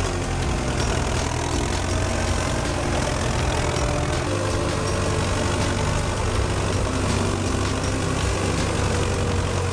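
Belarus MTZ-892 tractor's diesel engine running at a steady, unchanging speed.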